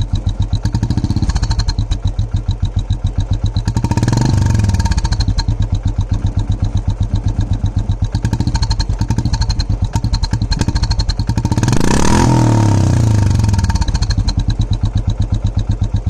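Single-cylinder Royal Enfield engine idling with a steady thudding beat through an exhaust fitted with a turbo whistle insert, which adds a faint whistle on top. The throttle is blipped twice, about four seconds in and again near twelve seconds, the engine note rising and falling each time.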